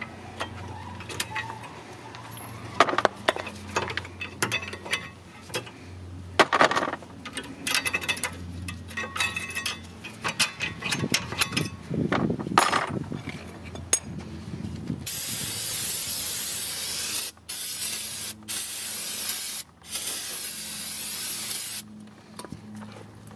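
Scattered metallic clicks and knocks of tools at the rear brake, then an aerosol can spraying the brake rotor and caliper in a long, steady hiss of about seven seconds, broken by three brief pauses.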